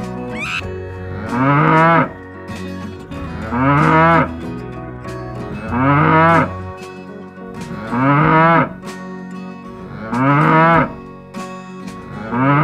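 Cattle mooing: six short calls at an even pace, about one every two seconds, each rising and then falling in pitch, over steady background music.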